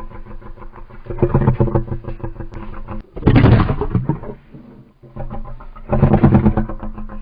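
Rock-style music with distorted electric guitar, broken about three seconds in by a loud, noisy burst lasting about a second that falls away: a Spinosaurus creature sound effect.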